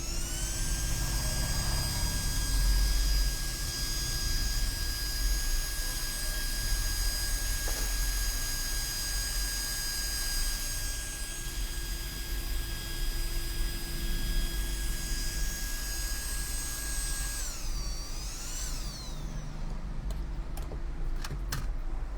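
Small electric cooling fan blowing on the iPad logic board after hot-air work: a steady high whine with a rush of air. About 18 seconds in, its pitch dips and climbs again, then the sound dies away, followed by a few light clicks.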